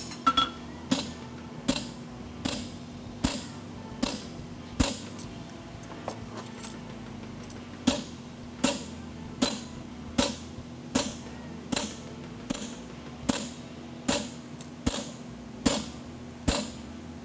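Farrier's hand hammer striking a red-hot steel draft horseshoe on the anvil: steady blows a little over one a second, each with a short metallic ring. The blows pause for about three seconds in the middle, with only light taps.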